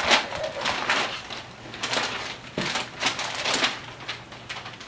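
Gift wrapping paper being torn and crumpled off a cardboard gift box, in a run of uneven ripping and rustling bursts.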